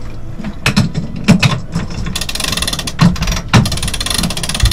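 Sailboat cockpit winch being cranked by hand with a winch handle, its pawls clicking rapidly and evenly. It starts with a few loud clunks, and the steady ratcheting begins about two seconds in.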